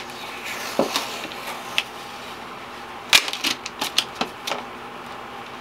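Cardboard product box and paper booklet being handled and opened: scattered light rustles with sharp taps and clicks, the loudest a little over three seconds in and a quick cluster of clicks around four seconds.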